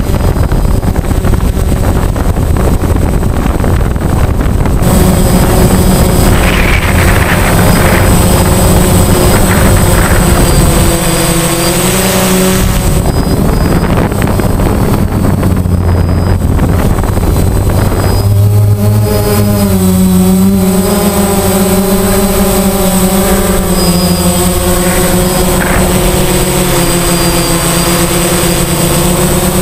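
DJI Phantom quadcopter's motors and propellers whirring close to the camera, a steady multi-tone whine that shifts up and down in pitch a few times as the drone changes speed, over a rushing noise.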